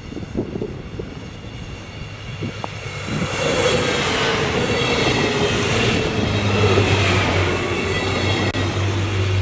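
Alstom Coradia LINT diesel multiple unit passing close at speed. It grows from scattered clicks to a loud rush of wheels and running gear about three seconds in, with whining tones that slowly drop in pitch as it goes by and a steady low engine hum in the second half.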